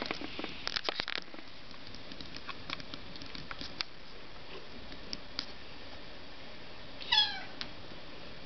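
Domestic cat giving one short meow that falls in pitch, about seven seconds in. Before it, a run of light clicks and taps in the first second or so.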